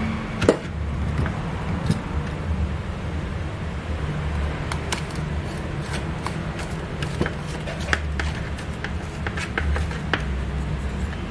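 Clicks and knocks from a hand-operated stainless steel cookie press being worked to press out dough, scattered irregularly, the loudest knock about half a second in, over a steady low hum.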